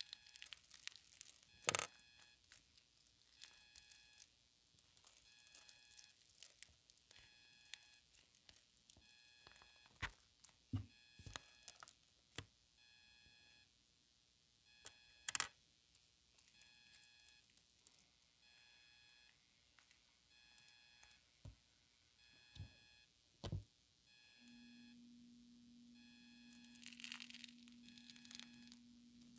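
Quiet handling of small clay craft pieces: a few sharp clicks and knocks as pieces are pressed and set down. A faint electronic beeping pattern repeats in the background, and near the end a steady low hum starts.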